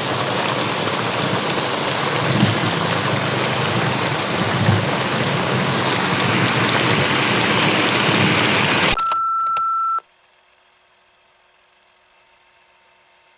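Heavy rain falling in a steady hiss, with two short low thumps about two and a half and five seconds in. The rain cuts off abruptly about nine seconds in and is followed by a single steady beep lasting about a second, then a faint hum.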